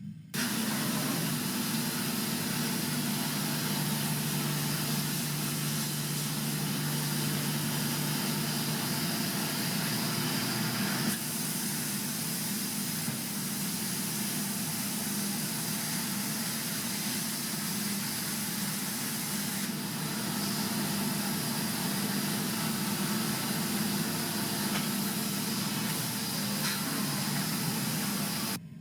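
Exeron Digma HSC 800 five-axis high-speed CNC milling machine running: a steady hiss over a low machine hum, the hum shifting about ten seconds in.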